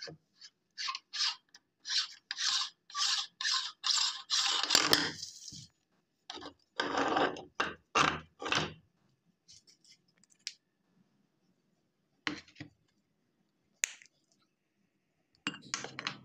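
Hand-cranked cast-metal meat grinder being taken apart: a run of short metal-on-metal scrapes, about two a second, as the threaded front ring is twisted off, then a few more scrapes as the auger is pulled out through sticky mush, then scattered light clicks.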